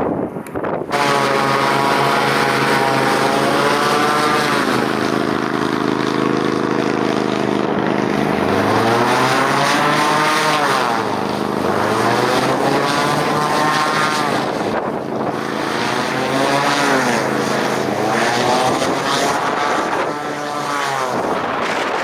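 Christy 7186 FC hovercraft running over sand: its engines and propeller give a loud, steady drone. The higher propeller tone sweeps up and down several times, and the engine pitch climbs twice in the middle.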